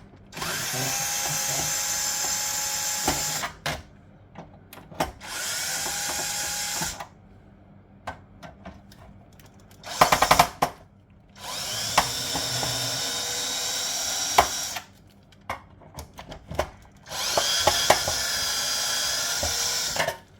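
Cordless drill-driver undoing screws from an old fuse box, run in five short bursts of a few seconds each, with clicks and knocks of screws and parts being handled between them.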